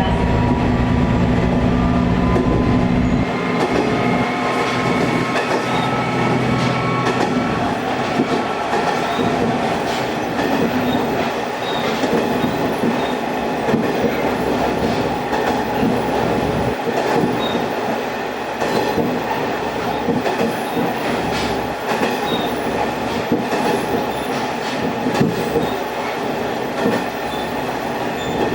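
Diesel railcar heard from on board. The engine's low drone stops about three seconds in, and the car runs on with a steady rolling rumble and scattered wheel clicks over the rail joints.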